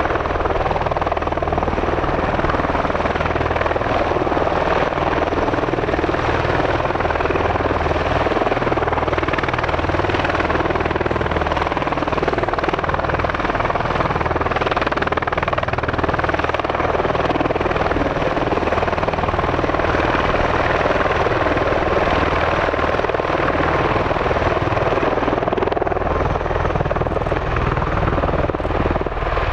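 Bell Boeing MV-22 Osprey tiltrotor running steadily, its twin turboshaft engines and big proprotors giving a constant low beat under a broad rushing whine.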